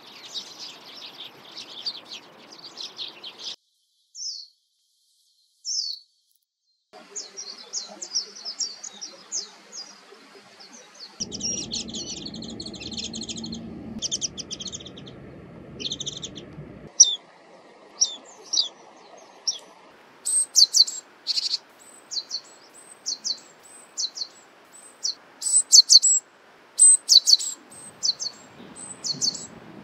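Small wild songbirds chirping and calling in short, high-pitched notes, in several recordings joined with abrupt cuts in the background sound. From about twenty seconds in the chirps come loud and quick, several a second.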